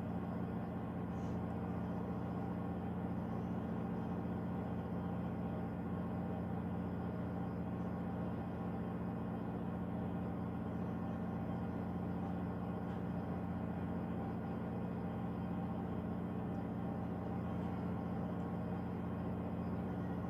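An engine running steadily at constant speed: a low hum with several steady tones that does not change.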